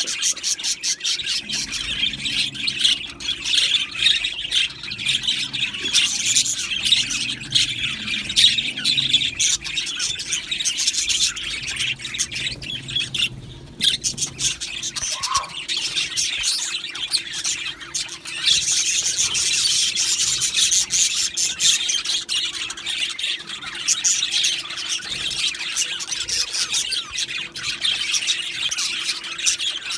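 A colony of budgerigars chattering together: many overlapping chirps, warbles and squawks in a dense, continuous chorus, with a brief lull a little before halfway.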